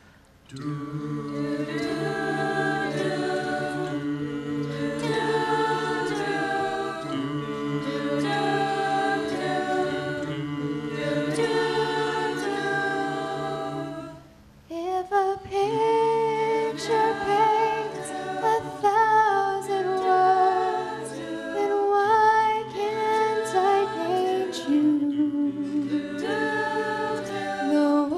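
Mixed choir singing a cappella in sustained, held chords. About halfway through the sound dips briefly, and the singing resumes with a woman's solo voice carrying the melody over the choir.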